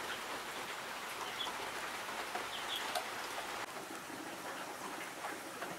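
Crab tamarind sour boiling under an aluminium lid in a karai over a wood fire: a steady hissing patter with a few faint clicks. A couple of faint bird chirps come through about a second and a half in and again near the three-second mark.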